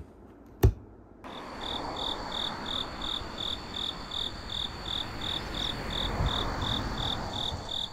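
A sharp click, then night insects chirping: a high chirp repeating about three times a second over steady high trills and a low, even background hiss.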